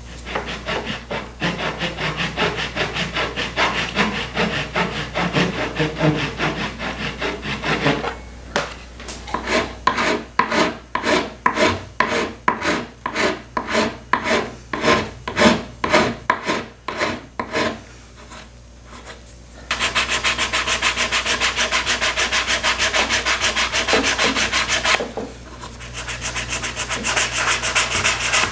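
Abrasive hand work on a wooden sofa frame and its hardened epoxy filler: scratchy sanding or rasping, then a run of even back-and-forth strokes about two a second. A steady buzz takes over for about five seconds in the second half before the rubbing returns.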